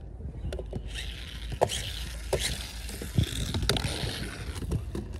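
Small plastic toy monster truck rolling and tumbling down a skatepark ramp: a hiss of its plastic tyres on the ramp surface, broken by several sharp knocks as it bounces, starting about a second in.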